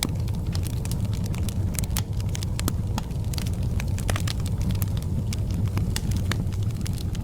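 Fire in a fireplace burning with a steady low rumble and frequent sharp crackles and pops.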